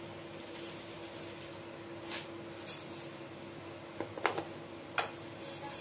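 Sesame seeds dry-roasting in a nonstick pan on the hob: a faint steady hum, with about five short light clicks scattered through the second half.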